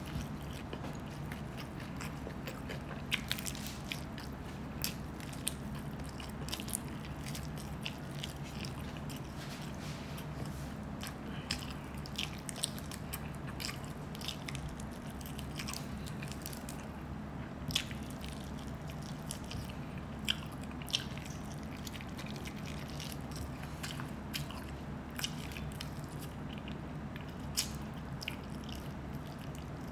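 Close-up eating sounds: a person chewing and biting food with wet mouth noises and scattered sharp clicks and crunches, over a steady low hum.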